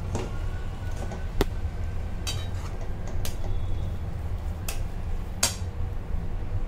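A flat metal spatula scraping and clinking against a metal kadai while stirring grated bottle gourd frying in ghee. There are about six sharp clinks over a steady low hum.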